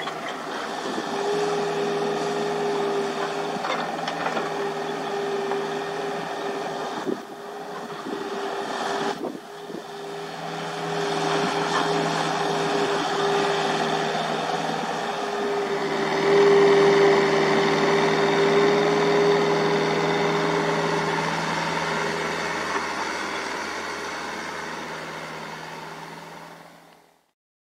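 Hydraulic excavator's diesel engine running steadily with a constant hum. The sound briefly drops twice, about seven and nine seconds in, and fades out near the end.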